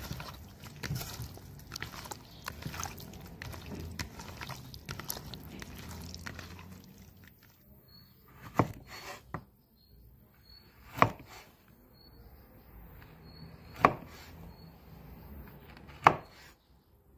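A hand squeezing and turning cubes of raw beef liver with spices in a plastic bowl, a wet rustling with small clicks. Then a knife cuts lamb fat tail on a wooden board: four sharp knocks of the blade hitting the board, about two and a half seconds apart. Faint bird chirps repeat in the background during the cutting.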